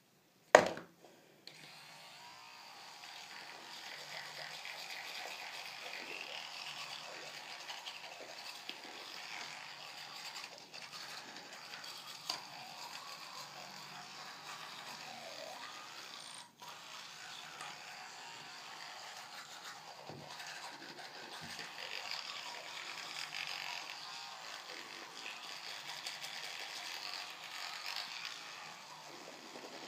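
A sharp click just after the start, then an electric toothbrush running in the mouth: a steady buzz with the scrubbing of the brush head on the teeth.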